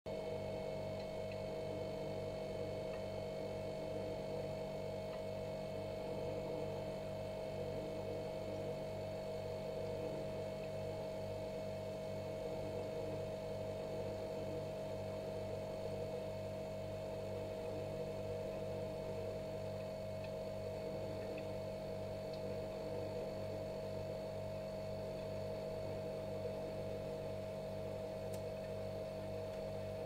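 Refrigerator running with a steady hum: one clear mid-pitched tone over a lower, even drone.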